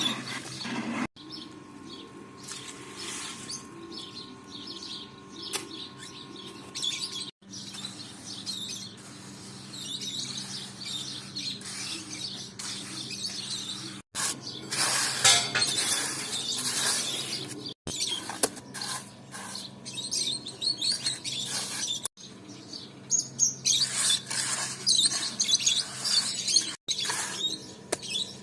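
Small birds chirping and singing in repeated bursts, over a faint steady low hum, with the sound broken off abruptly several times.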